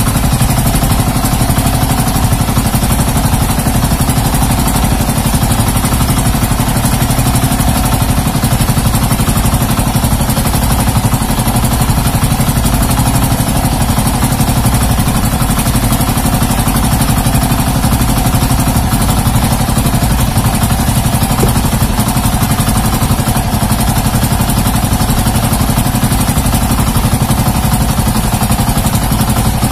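Motorized outrigger boat's (bangka's) engine running steadily under way, an even, unbroken drone with the rush of wind and water.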